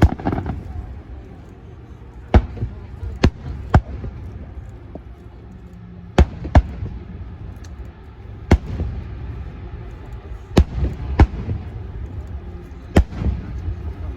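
Fireworks bursting, about ten sharp bangs at uneven intervals, some in quick pairs, over a low rumble of crowd noise.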